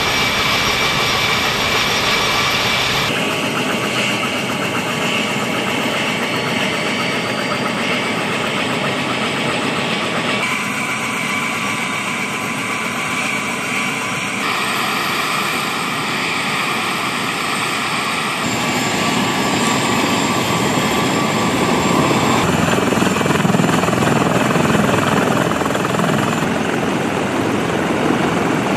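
CH-53E Super Stallion heavy helicopter running on the ground, its three turboshaft engines giving a steady whine over the loud rush of the turning rotor. The tone of the noise shifts abruptly several times.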